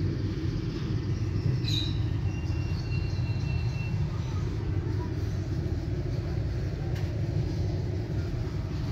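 Steady low rumble of background noise, with a couple of faint thin high squeaks about two seconds in.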